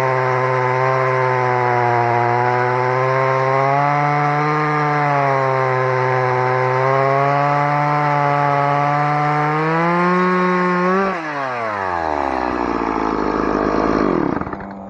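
Stihl MS 180 two-stroke chainsaw running at high revs while cutting through a thick tree trunk, its pitch wavering slightly under load. About eleven seconds in, the engine revs fall away in a long downward slide as the throttle comes off at the end of the cut.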